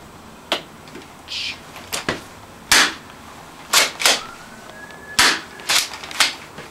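A string of short, sharp, gunshot-like bursts, about nine of them at uneven spacing, some in quick pairs, with a faint rising whistle between them, as a pump-action shotgun is swung around in mock gunplay.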